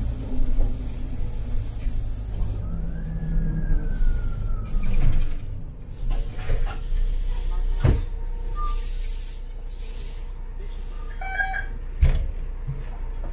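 City bus running, heard from inside: a steady engine rumble with hisses of air from the air brakes, rattles and two sharp knocks. There is a short beep shortly before the end.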